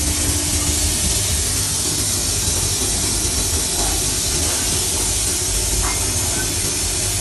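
Sheet-metal forming press and workshop machinery running: a steady loud hiss over a low hum, with no distinct strikes.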